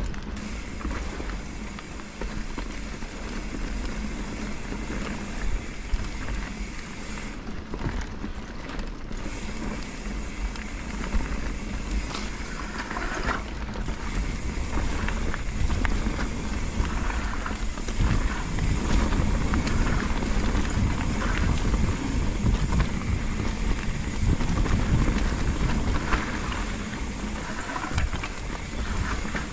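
Mountain bike riding down a dirt trail: wind buffeting the microphone over a steady rumble of tyres on the ground, with scattered knocks and rattles from the bike. It gets louder about halfway through.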